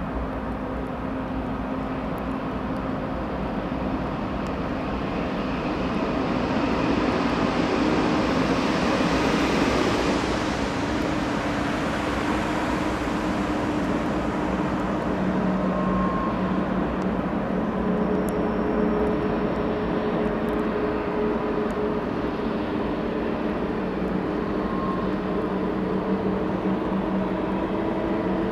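Long CN freight train passing. The diesel locomotives' engine drone and the rolling rumble grow to their loudest about eight to ten seconds in, then carry on steadily as the train rolls by.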